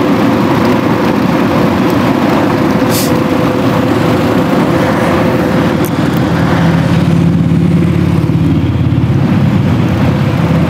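Loud steady vehicle-engine noise with a constant hum; a deeper engine drone joins about six seconds in.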